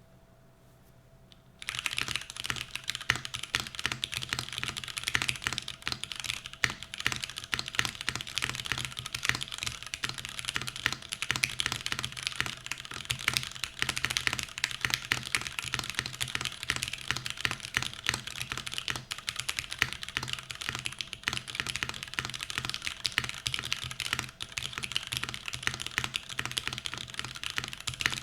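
Continuous fast typing on a custom 75% aluminium top-mount mechanical keyboard with linear MX Black switches, starting about a second and a half in. A faint steady hum lies underneath.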